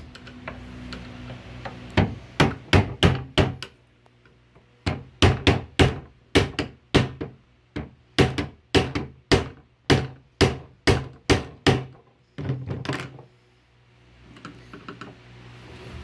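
Hammer blows on a steel tool wedged under an old trunk's metal latch: a run of about six sharp strikes, a short pause, then a long even run at about two and a half a second, ending in a rougher burst. The latch is slow to come free because its rivet has a washer underneath.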